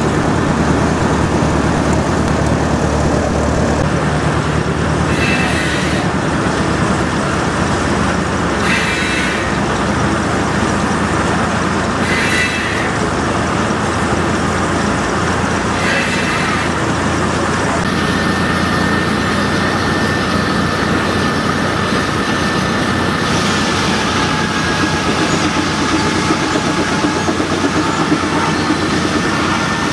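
Steam traction engine running, driving a sawmill through a long flat belt: a steady mechanical clatter, with short hissy bursts every three to four seconds in the first half and a steady whine that comes in later.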